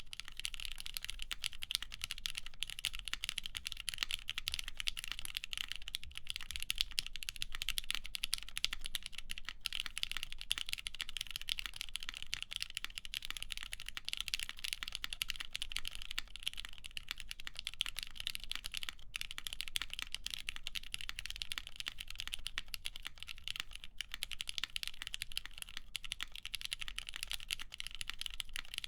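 Continuous typing on a custom mechanical keyboard with lubed Cherry MX Black linear switches, a full aluminium plate and GMK ABS keycaps: a dense, unbroken run of keystrokes.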